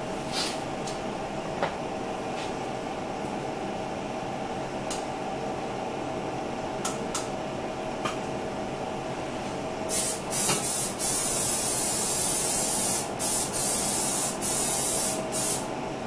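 Aerosol cooking spray hissing onto a round baking pan in several bursts with short breaks, starting about ten seconds in and lasting some six seconds, greasing the pan so the food won't stick.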